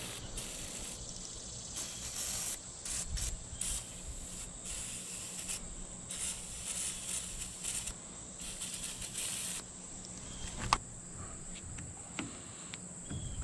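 Aerosol penetrating spray hissing onto corroded battery terminals in a series of short and longer squirts, then a single sharp metallic click of a wrench at the terminal near the end, with a few faint ticks after it. A steady high insect drone runs underneath.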